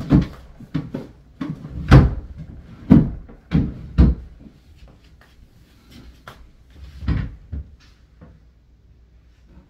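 Rummaging through a bedroom cabinet: a run of knocks and bangs as drawers and cabinet doors are pulled open and pushed shut, loudest about two, three and four seconds in and again near seven, then fading to a few light knocks.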